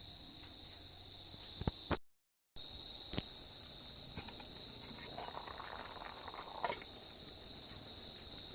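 Night crickets trilling steadily in a high, shrill chorus, with a few faint clicks here and there. The sound cuts out completely for about half a second around two seconds in.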